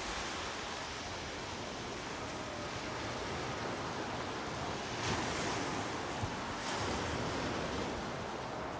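Sea waves washing onto the beach: a steady rush of surf that swells a little about five seconds in.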